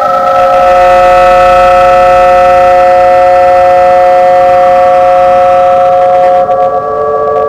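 Soundtrack music: a loud, sustained drone of several held tones sounding together, shifting to a different chord about six and a half seconds in.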